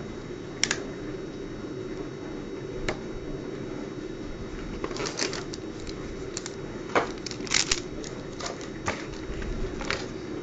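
Handling noise: scattered clicks and taps as a plastic mobile phone and its boxed accessories are handled, set down and picked up, busiest in the second half, over a steady low hum.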